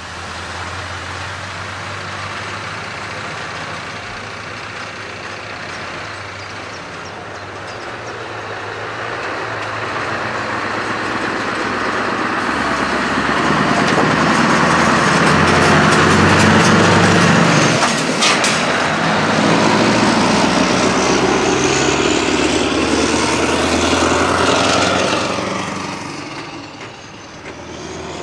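Scania R500 V8 diesel truck with open standing exhaust pipes driving past, its engine growing louder to a peak about halfway through and fading as it pulls away. A brief sharp sound cuts through about two-thirds of the way in.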